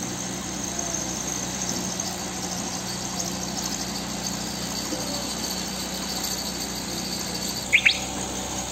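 Heavy diesel machinery engine running steadily at idle, a constant low hum with a faint high whine. Near the end come two short, shrill, rising chirps.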